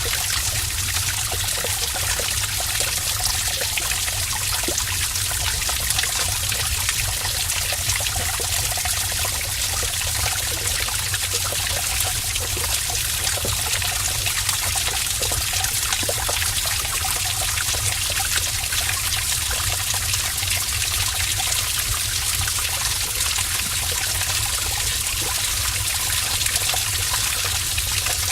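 Heavy stream of water running steadily through a cave, an even splashing rush with a low rumble underneath.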